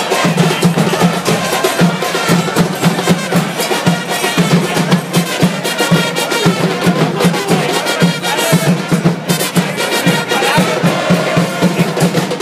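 Football supporters' band playing: drums beating a steady rhythm with trumpets over it.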